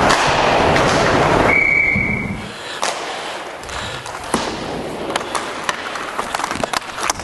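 Ice hockey play: a loud steady rush of rink noise for the first two seconds, with a short referee's whistle blast about a second and a half in, then skates scraping on the ice and sharp clacks of sticks and puck.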